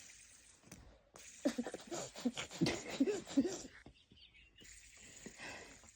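Soft, breathy vocal sounds with a wavering pitch for about two seconds, followed by a breathy hiss near the end.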